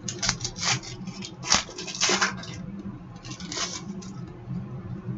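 Trading cards sliding and snapping against one another as they are flipped through by hand: a quick run of short swishes, thickest about two seconds in, then sparser.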